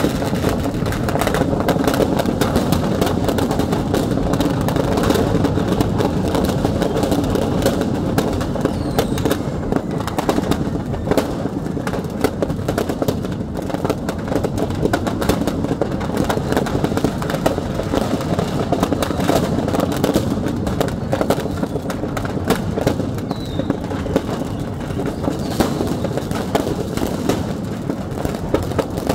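A shop's stock of firecrackers set off by a fire: a dense, unbroken crackle of many small bangs and pops over a heavy low rush.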